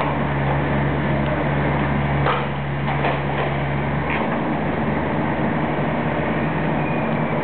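Tracked demolition excavator's diesel engine running steadily under hydraulic load, its note changing about four seconds in, with a few sharp knocks from the steel frame being worked on.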